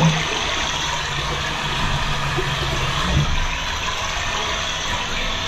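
Steady rush of recorded flowing water played through the speaker of a TOTO toilet sound-masking unit (a 'sound princess' privacy device), with a low hum underneath.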